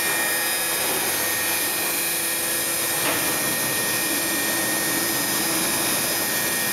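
Steady hiss and hum of a robotic wood-sanding cell at work: sanding machines and dust extraction running. A faint tone wavers in pitch from about three to six seconds in, as the robot arm moves.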